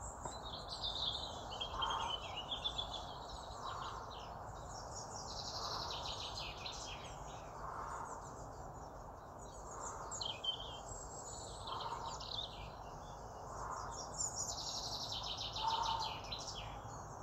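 Birds singing and chirping with quick trills, over a steady low background hiss. A faint short, lower sound repeats about every two seconds.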